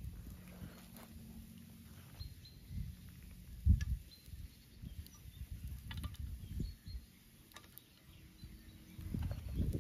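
Outdoor ambience: a low rumbling noise that comes and goes, faint bird chirps, and scattered light clicks, with a thump a little under four seconds in.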